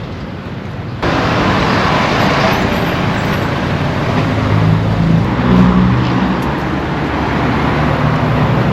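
Street traffic noise, which jumps louder about a second in. A motor vehicle's engine passes close, loudest about five to six seconds in.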